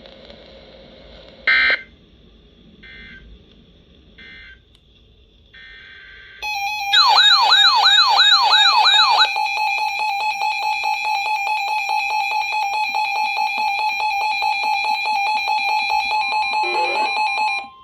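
Emergency alert signalling between two weather-radio warnings: a few short digital data bursts, then a loud electronic alarm that starts about six seconds in, warbling rapidly for about three seconds and then holding a steady, rapidly pulsing buzzy tone. A steady attention tone begins faintly near the end as the tornado warning alert starts.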